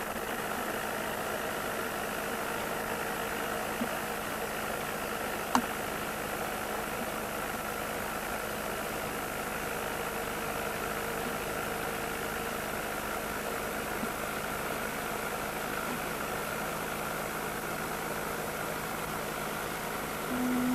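A steady mechanical hum with a few fixed tones over a hiss, unchanging throughout, broken once by a sharp click about five and a half seconds in.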